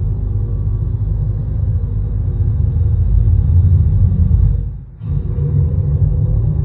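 Steady low rumble from the Carvana car vending machine, which dips out for a moment about five seconds in and then comes back.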